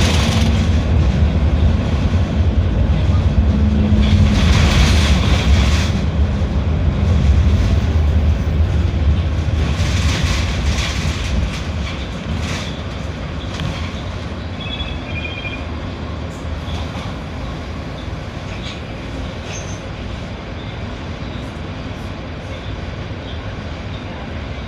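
Mercedes-Benz OF 1721L BlueTec 6 bus's diesel engine running, loud for about the first six seconds and then fading steadily, with two brief bursts of hissing noise over it.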